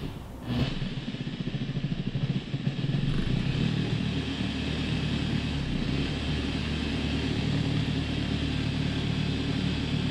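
Maxshine dual-action (random orbital) polisher running with its pad pressed flat against window glass: a steady electric-motor hum with the buzz of the orbiting pad. It dips briefly at the start, then runs a little louder from about three seconds in.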